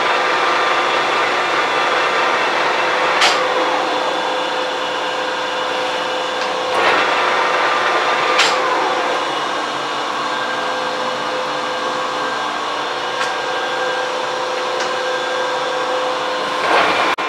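A metalworking machine runs with a steady whir and hum. There are four sharp clicks along the way, and two of them trail off in a short falling tone.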